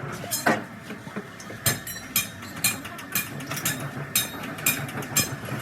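A steady run of sharp knocks, about two a second, over a low steady hum, with a single strike about half a second in whose ringing falls in pitch.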